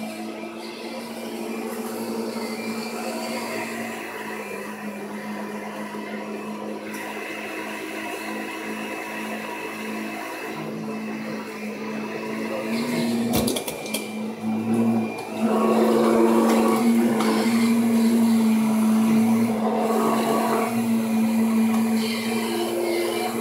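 Vacuum cleaner running with a steady motor hum, its pitch and level shifting as it moves; a sharp knock about halfway through, and the motor gets louder a few seconds later.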